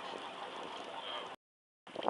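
Steady rushing ambient noise of wind and water around a small fishing boat, cut off abruptly partway through by an edit into dead silence.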